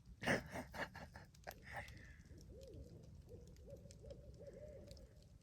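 Barred owl calling faintly: a quick run of short hoots that rise and fall in pitch, starting about halfway through. A few sharp clicks come before it.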